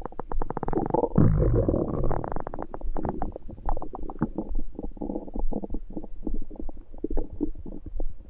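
Stomach growling and gurgling from an upset stomach: a fast run of bubbly pops, with a deeper, louder rumble about a second in.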